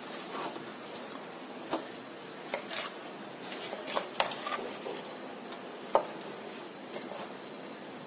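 A plastic ladle stirring jaggery into thick cooked lentils and sago in an aluminium pot: faint wet stirring with a few scattered light clicks of the ladle against the pot.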